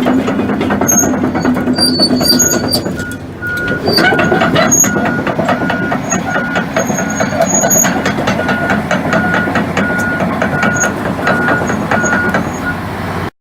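Hitachi ZX450LC excavator travelling on its tracks: the diesel engine runs under steady clanking from the steel tracks. From about three and a half seconds in, a travel alarm beeps about twice a second.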